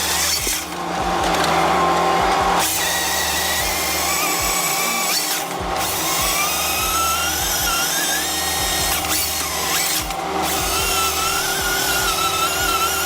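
A power saw running with a high whine whose pitch wavers and rises and falls as it cuts. The sound breaks off abruptly and starts again several times.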